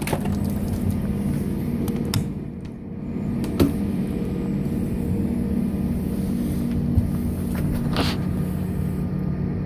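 Pressure washer running steadily, its motor and pump humming as it sprays, starting abruptly at the beginning and dipping briefly about two and a half seconds in, with a few sharp clicks along the way.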